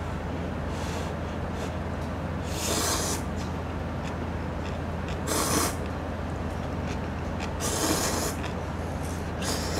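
A person slurping Chapagetti instant noodles: several loud slurps, the strongest about three, five and a half and eight seconds in, with a fainter one about a second in. A steady low hum runs underneath.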